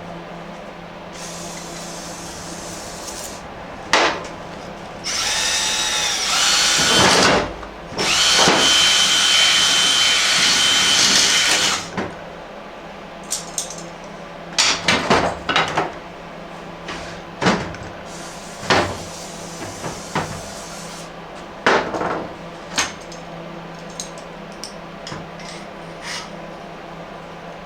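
Drill spinning a cylinder hone in the cylinder of a Honda HRM 215 mower engine: two runs of a few seconds each, then a string of short blips and clicks.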